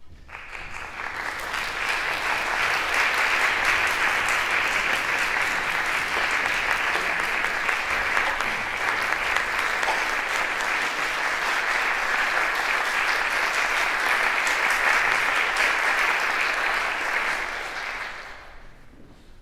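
Audience applause, swelling over the first two seconds, holding steady, then dying away about eighteen seconds in.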